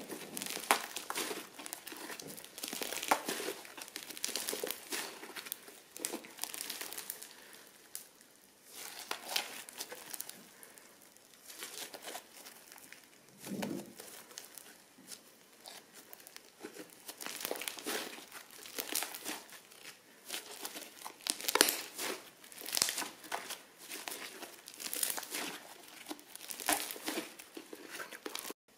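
Crunchy slime being squeezed and worked by hand: dense, irregular crackling and crinkling, with a couple of short lulls.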